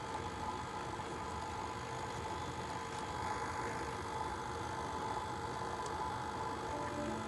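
Electric stand mixer running steadily at low speed, a continuous motor hum with a faint whine, while ingredients are added gradually to the bowl.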